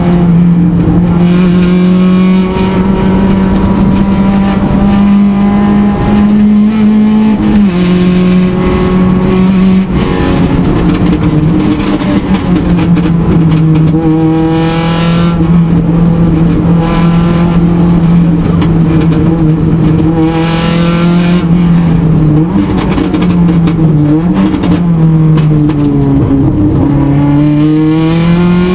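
Rally car engine heard from inside the cabin, driven hard along a special stage. The engine note holds high, drops suddenly a few times and swings up and down with the throttle, rising again near the end.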